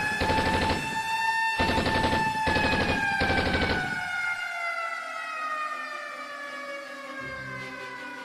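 Air-raid-style siren wailing, its pitch slowly falling as it winds down, with bursts of rapid automatic gunfire over it for the first few seconds. A low beat comes in near the end.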